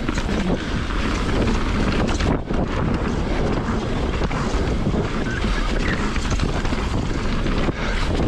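Wind buffeting a GoPro Hero 8's microphone during a fast mountain-bike descent, with the tyres rolling over a dirt trail and the 2020 Rocky Mountain Instinct BC's frequent clatter and knocks over roots and bumps. It drops briefly about two seconds in.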